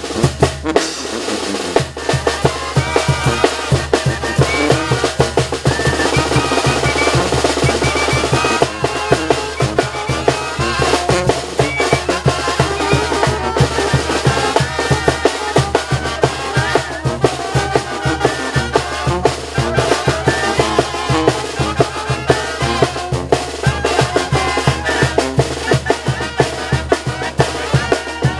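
Mexican banda, a brass-and-wind band with drums, playing a tune live: sustained horn melodies over a steady, even beat of bass drum and snare.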